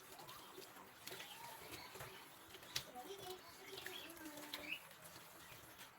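Faint background sound with scattered short high chirps and a few soft clicks, the sharpest about three seconds in.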